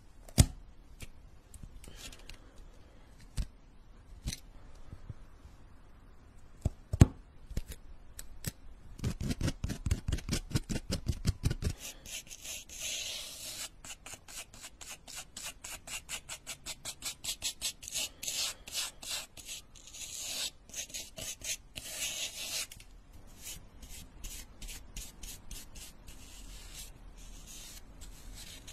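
Close-up sounds of sculpting tools working a soft pink clay sheet: a few sharp clicks and taps, then about three seconds of quick low tapping, then about ten seconds of rapid, bright scratching or brushing strokes, several a second, fading to lighter scratching near the end.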